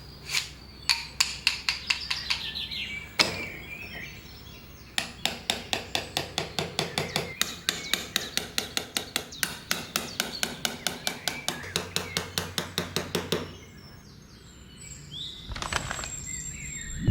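Small hammer tapping on wood: a few scattered taps at first, then a long, even run of about five light taps a second that stops a few seconds before the end. Birds chirp in the background.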